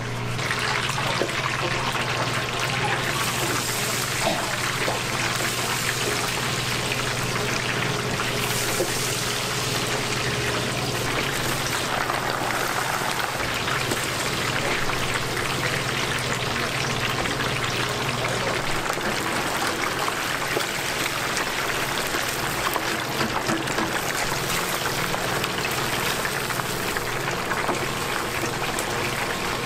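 Batter-coated chicken pieces deep-frying in a large pan of hot oil: a dense, steady sizzle and bubbling. A steady low hum runs beneath it and stops about two-thirds of the way through.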